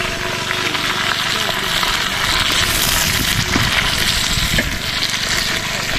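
Meat frying in a cauldron over a campfire: a steady, even sizzle. A steady hum runs under it and stops about halfway through.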